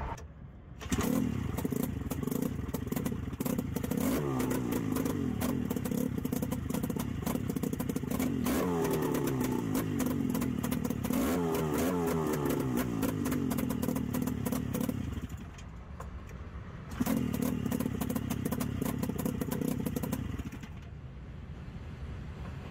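Freshly rebuilt Buran snowmobile engine, a two-cylinder two-stroke, test-run on a stand. It starts about a second in and runs with a few blips of the throttle, then cuts out. It starts again a couple of seconds later, runs for a few seconds and stops again near the end.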